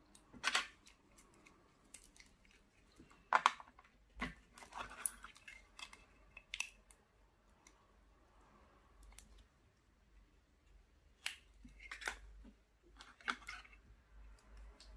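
Gloved hands handling a small model MiG-23 jet and its plastic display stand: scattered sharp clicks, taps and short rustles as the stand arm is fitted into the base and the plane set on it. The loudest clicks come about half a second and three and a half seconds in.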